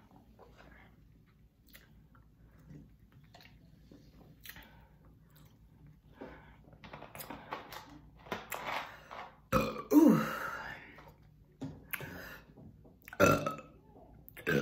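A woman burping, working up burps that are slow to come: faint mouth clicks at first, then a loud burp about ten seconds in whose pitch drops, and another loud burp near the end.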